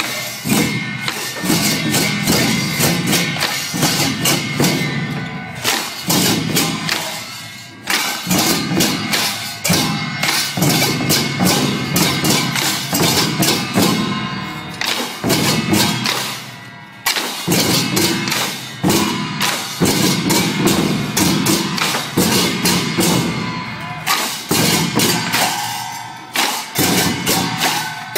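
Large barrel drums and hand cymbals playing together in a fast, steady processional beat, the cymbals clashing bright over the deep drum strokes, with a couple of brief breaks between phrases.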